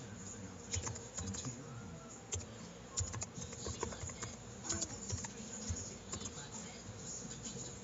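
Computer keyboard typing: irregular keystroke clicks as a short line of text is typed, over a faint steady hum.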